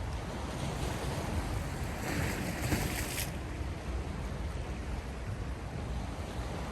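Sea waves washing on the shore, a steady rush of surf with one wave swelling louder and brighter about two seconds in and falling back after about three seconds.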